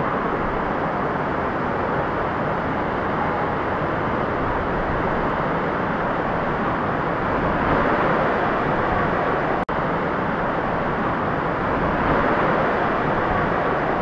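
Steady rushing noise of a waterfall, even and unbroken apart from a momentary dropout about two-thirds of the way through.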